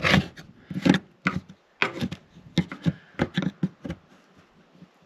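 A hand scraper chipping and scraping old, dried-up sealant off the white camper roof around a vent flange. About a dozen short, uneven scraping strokes, ending about four seconds in.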